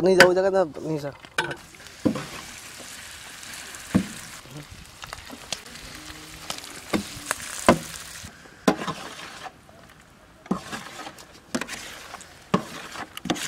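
Cooked rice hitting a wide, hot metal pan of fried eggs and masala, with a steady sizzling hiss that thins out after about eight seconds. A metal spatula scrapes and knocks against the pan about once a second as the rice is mixed in.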